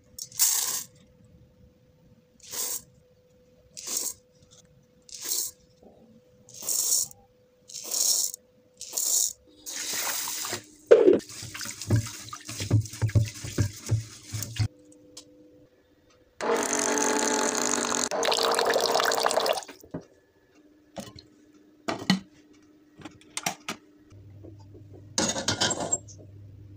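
Rice being washed in water in a rice cooker's inner pot. Short splashes come about once a second, then the rice and water are swished around. Near the middle a tap runs steadily for about three seconds, and one more short splash comes near the end.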